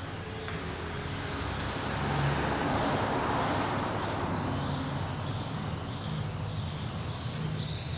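Steady background noise, a broad hiss and rumble that swells about two seconds in and slowly eases off, with no distinct knocks.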